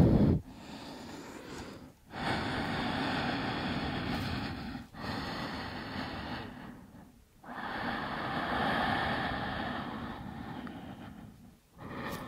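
A woman breathing slowly and deeply, with long audible breaths of a few seconds each and short pauses between them. These are held breaths in a resting stretch.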